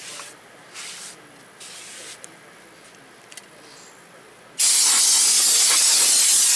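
An aerosol cleaner can spraying onto a brake rotor in one long, steady, loud hiss that starts suddenly about two-thirds of the way in. Before it come a few short, faint rubs of a paper towel wiping the rotor face.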